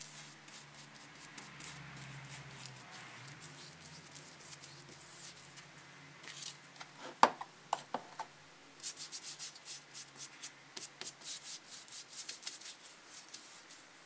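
A stiff glue brush scrubs adhesive onto a shoe insole, then works in many quick short dabbing strokes over a lining piece. A sharp knock and a few clicks fall in between, about seven seconds in.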